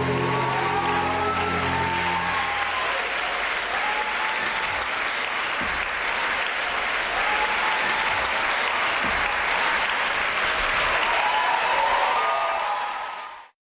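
Audience applauding and cheering, over the last held notes of the dance music in the first couple of seconds. The applause fades out just before the end.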